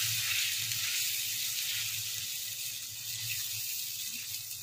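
Watery soy-based gravy sizzling and bubbling in a nonstick wok as it is stirred with a wooden spatula: a steady hiss that eases slightly toward the end.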